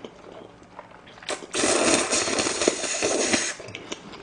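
A person slurping a mouthful of sauce-coated instant stir-fried noodles: a long, loud slurp starting about a second in and lasting about two seconds, followed by quieter chewing.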